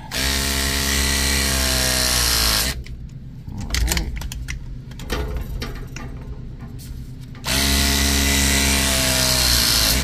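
Battery-powered RLS press tool crimping copper press fittings on a refrigeration liquid line: two press cycles, each about two and a half seconds of motor whine that drops in pitch as the jaws close down on the fitting.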